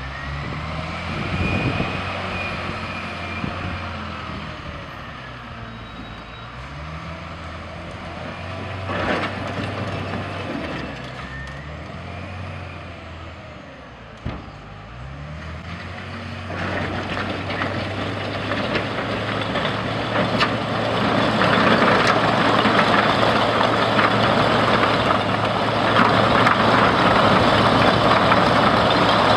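Wheel loader's diesel engine running and revving up and down in pitch as it manoeuvres, with a few knocks. About halfway through it gets louder as the bucket shoves a pile of concrete paving blocks across the pavement, the blocks scraping and clattering continuously.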